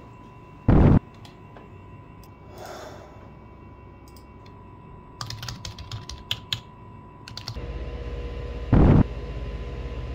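Typing on a computer keyboard: a quick run of key clicks about halfway through. Two heavy thumps, much louder than the typing, come one about a second in and one near the end, and a low hum comes in just after the typing stops.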